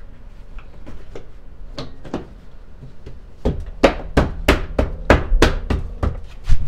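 Hand knocking on the truck's plastic door-sill trim panel: a couple of lighter knocks, then from about three and a half seconds in a run of about ten sharp knocks, roughly three a second.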